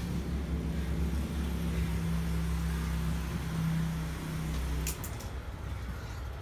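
A motor running with a steady low hum that cuts off about five seconds in, followed by a few sharp clicks.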